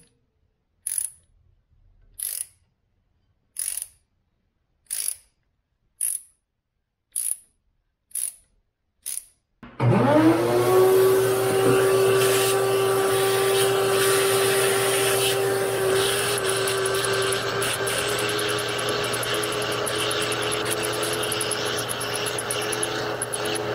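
A ratchet gives single sharp clicks about once a second as it turns a tap cutting new threads into the aluminium cylinder head. About ten seconds in, a shop vacuum starts, its whine rising as the motor spins up and then holding steady over rushing air. The vacuum is held at the tapped hole to draw out the metal chips.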